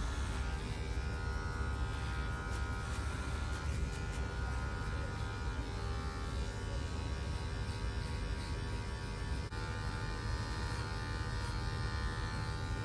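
Electric hair clipper buzzing steadily as it cuts hair.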